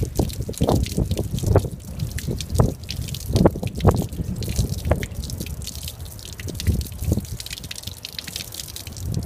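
Water splashing and dripping off a stainless-steel vegetable-grinder head as it is rinsed clean, in irregular splashes.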